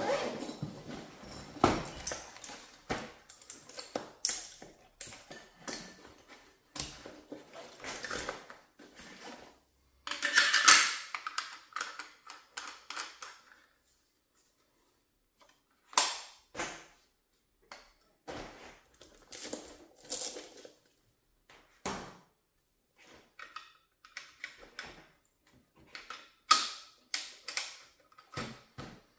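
Hands handling a padded fabric rifle case and a Brügger & Thomet SPR300 takedown rifle: scattered clicks, knocks and rustles of fabric and metal parts. The longest and loudest sound is a rasping rush about ten seconds in, while the case is being opened.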